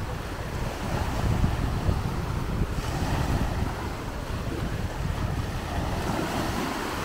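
Small sea waves breaking and washing in the shallows, with wind buffeting the microphone in a steady low rumble.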